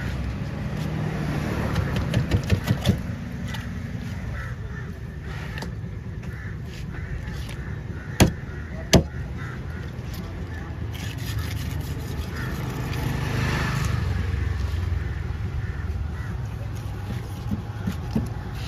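Large curved knife cutting and chopping through southern stingray flesh and cartilage on a wooden table, with scraping strokes. A quick run of about five chops comes about two seconds in, and two sharp knocks of the blade on the wood come about eight and nine seconds in, over a steady low rumble.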